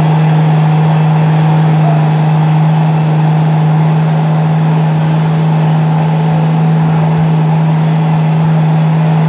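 Diesel pickup truck engine held at a steady, high rev, one loud unchanging drone, while its tires churn in deep mud.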